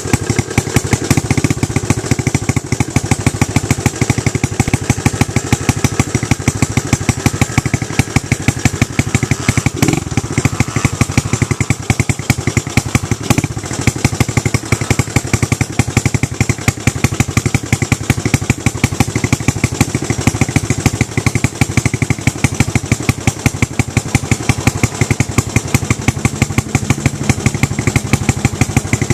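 Small 100cc dirt bike engine running steadily at high revs throughout, a fast, even pulsing, as the bike climbs a hill on which its tyre won't grip.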